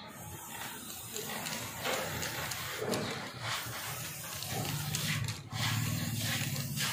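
Silver paint being sprayed onto a cast starter-motor housing, hissing in several short bursts. A low hum runs underneath over the second half.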